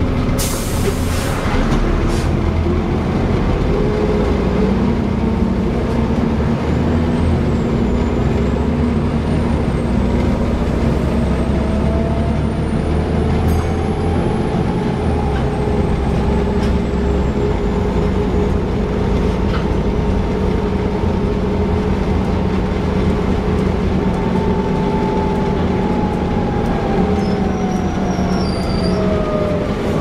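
Bus 37026 heard from inside the saloon while under way: engine and road rumble with ZF automatic gearbox whine that glides up and down in pitch as it gathers speed and slows, and a high vacuum-cleaner-like 'hoover' whine above it. A short burst of air hiss about a second in.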